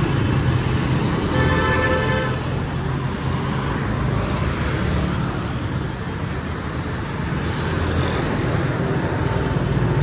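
Street traffic passing close by: motorbike, auto-rickshaw and car engines running steadily, with a vehicle horn sounding once for under a second, about a second and a half in.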